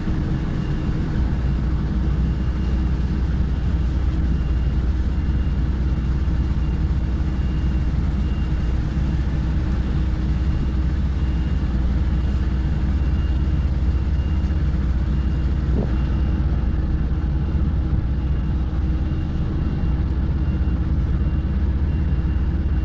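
HGV diesel engine running steadily at low speed while the lorry manoeuvres slowly, with a faint high beep repeating at a regular pace, typical of a reversing alarm.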